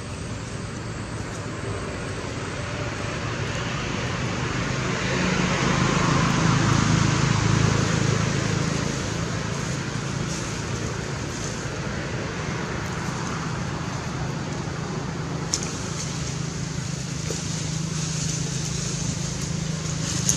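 A motor vehicle's engine running, growing louder from about a quarter of the way in and easing off again after the middle, with a steady high hiss underneath.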